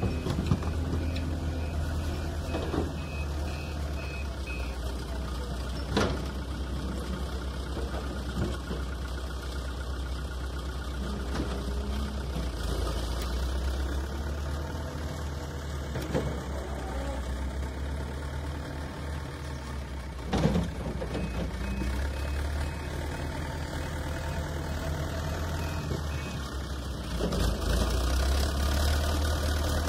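Backhoe loader's diesel engine running steadily, with a couple of sharp knocks. The engine grows louder near the end as the loader raises its front bucket.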